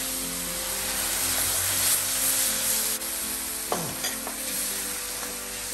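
Flat rice noodles sizzling as they fry in a hot frying pan, stirred and turned with a wooden spatula. A brief knock sounds about two-thirds of the way through.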